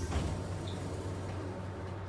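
Steady low hum inside a Wiener Linien tram, with no distinct knocks or beeps.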